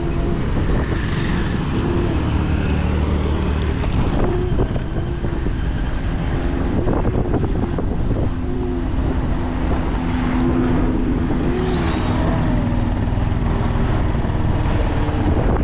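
A moving road vehicle's engine running steadily under a heavy low rumble of road and wind noise, heard from on board.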